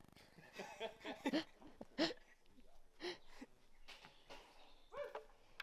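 A person's faint wordless voice sounds, short murmurs and breaths, a few times, with quiet outdoor background in between.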